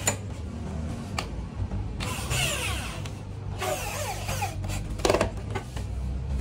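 Cordless drill boring into a wooden shelf board in two short bursts, about two seconds in and again near four seconds, its pitch sliding as the speed changes. A few sharp knocks come between the bursts.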